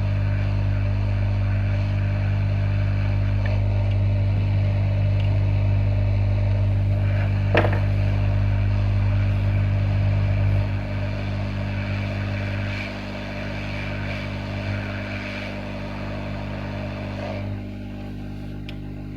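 Hot-air rework gun blowing steadily while an IC is changed on a circuit board: a loud, even drone with a deep mains hum. A single short click comes about halfway, and the sound eases down in steps in the second half.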